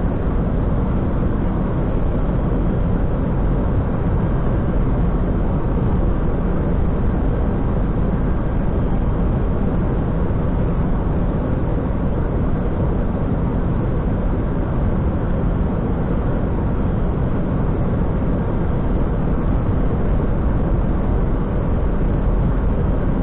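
Steady rushing cockpit noise of an Airbus A320 on final approach: air streaming over the nose and windscreen mixed with engine noise, heaviest in the low end and unchanging.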